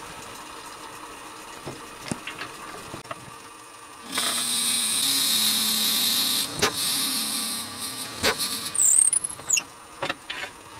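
Wood lathe running with a steady hum. About four seconds in, a 1/2-inch Forstner bit in the tailstock drill chuck starts boring into the end of the spinning black palm blank: a loud cutting noise for about four seconds that then fades. A few clicks and short squeaks follow near the end.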